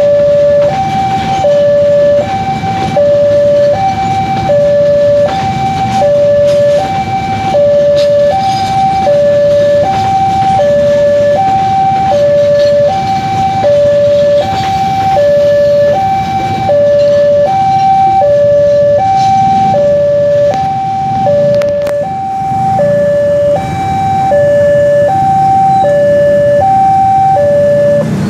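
Railway level-crossing warning alarm sounding two alternating tones, high then low, about one high-low cycle a second, over the rumble of passenger carriages rolling past. The alarm stops near the end as the train clears the crossing.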